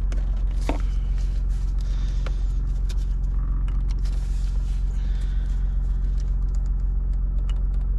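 Steady low hum of the BMW F20's engine idling, with scattered sharp clicks and short scrapes of plastic console trim and clips being pried and handled.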